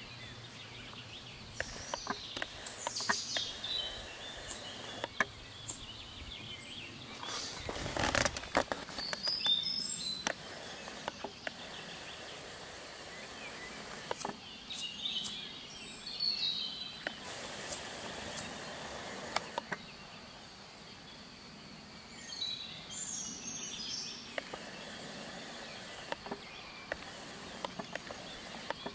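Outdoor background noise with songbirds singing short warbling phrases every few seconds, along with scattered clicks and one brief louder rustle about eight seconds in.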